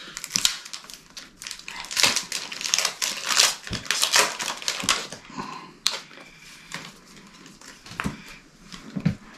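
A foil Pokémon booster pack crinkling and crackling in the hands as it is opened, with the cards inside clicking and sliding as they are handled. The crackling is busiest for the first five seconds, then thins to a few scattered clicks.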